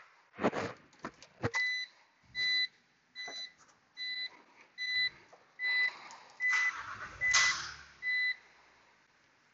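An electronic warning beeper sounding nine short beeps of one steady high pitch, evenly spaced a little under a second apart, over clicks and knocks. There are louder noisy rushes about two-thirds of the way through.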